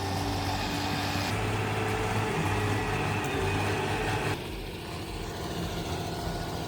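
Engine of a heavy machine running steadily with a low hum; the sound changes abruptly twice, as between spliced clips.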